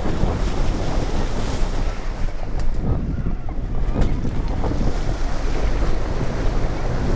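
Water splashing and churning around a vehicle as it drives through a shallow river, with wind buffeting the microphone. There are a couple of sharp knocks about two and a half and four seconds in.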